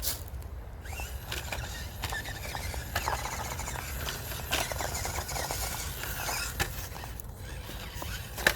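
Small electric RC crawler motors and gears whining, rising and falling as the throttle is worked. Scattered clicks and knocks of tyres and chassis against the obstacle come through.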